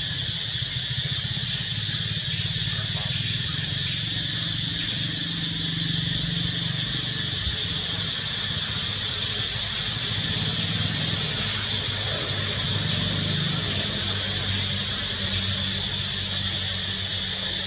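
Steady high-pitched hiss of outdoor ambience, with a low droning hum underneath; no distinct calls or events.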